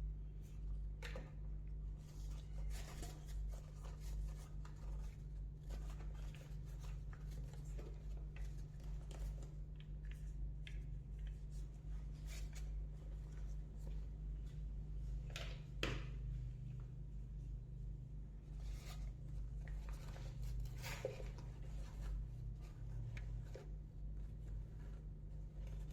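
Faint, scattered rustles and light clicks of a fabric hair dryer storage bag being handled, over a steady low hum.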